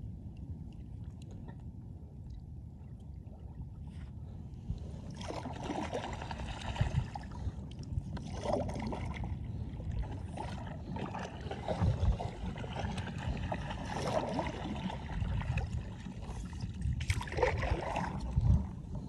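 Paddle strokes splashing and gurgling in calm water beside a stand-up paddleboard, starting about five seconds in and coming every two to three seconds, over a low steady rumble.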